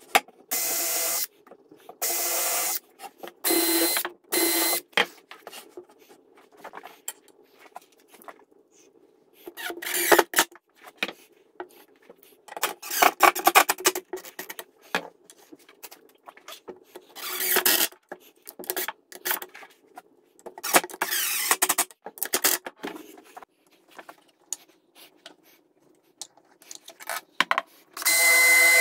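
DeWalt 20V MAX cordless drill/driver running in repeated short bursts of about a second, fastening metal corner brackets into a wooden bed frame. Light clicks and clatter of handling fall between the bursts.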